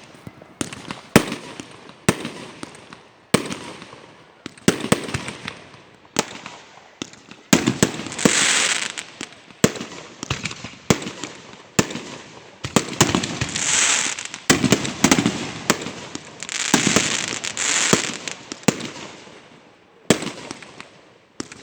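Fireworks going off: a steady run of sharp bangs, some in quick succession. About eight, thirteen and seventeen seconds in come longer hissing swells, each a second or two long.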